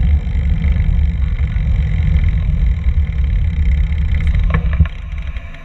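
Wind buffeting the microphone of a moving camera: a loud, unsteady low rumble, with a few clicks near the end as it drops away.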